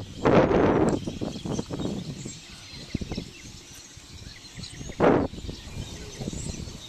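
Wind buffeting the microphone in two gusts. The first comes just after the start and lasts under a second; a shorter one follows about five seconds in, with a low, faint outdoor background in between.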